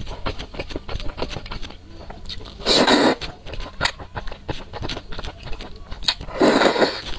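Close-miked eating of thick noodles in sauce: wet chewing and mouth clicks, with two loud slurps of noodles, one about three seconds in and one near the end.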